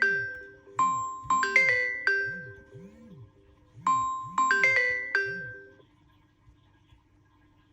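Samsung Galaxy phone ringing: a bright, mallet-like chime phrase of rising notes, repeated about every three seconds, that stops about six seconds in.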